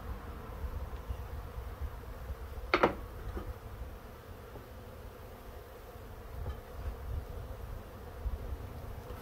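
Honeybees buzzing, a faint steady hum from the swarm around an open hive box. One short, loud sound comes about three seconds in.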